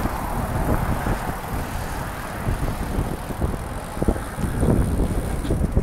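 Wind buffeting the microphone of a camera on a moving recumbent racing trike, over the road noise of its tyres on wet pavement in the rain. The noise is steady and flutters in level.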